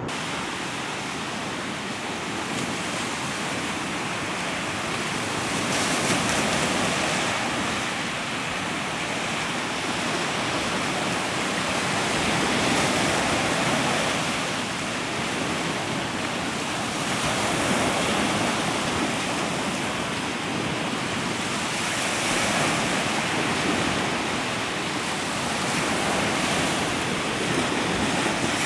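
Ocean surf washing onto a shore, a steady rush that swells and eases about every five to six seconds.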